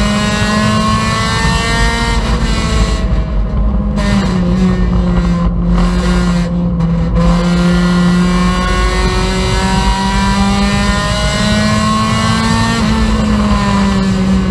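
Racing Honda Civic's four-cylinder engine heard from inside the stripped, caged cabin at racing speed, its note rising on the throttle and dropping back several times as the car goes through corners.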